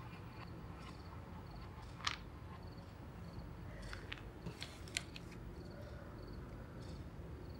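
Quiet night ambience with crickets chirping in a steady, even rhythm, and a few small sharp clicks, the loudest about two seconds in.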